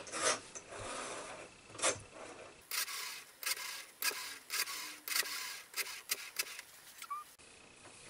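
Rotary dial of a 1960 Western Electric telephone being wound round by finger and spinning back, a run of short clicks and whirring turns as a number is dialed.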